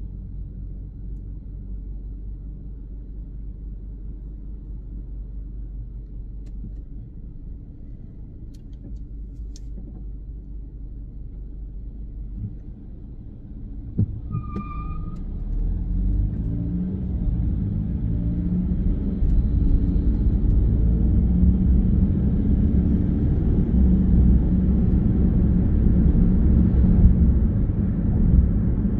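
Low rumble of a car's engine and running gear heard from inside the cabin, steady while it waits at a standstill. About halfway through, a brief high beep sounds. The car then pulls away, and the engine and road rumble grow steadily louder as it gathers speed.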